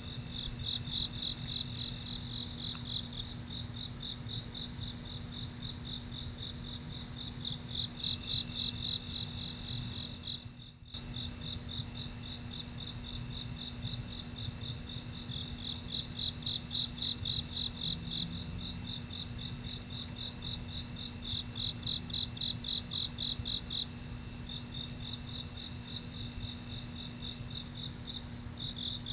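Night insects calling: a steady high-pitched trill with, under it, a rhythmic chirping of several pulses a second that swells and fades in runs. The sound drops out briefly about eleven seconds in.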